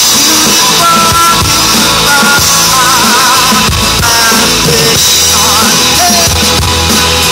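Live Christian rock band playing loudly: electric and acoustic guitars, bass and a drum kit, with a wavering lead melody over the steady beat.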